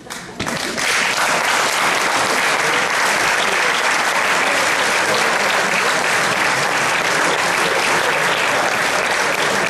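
Theatre audience applauding. It breaks out suddenly, is at full strength within about a second, then holds steady.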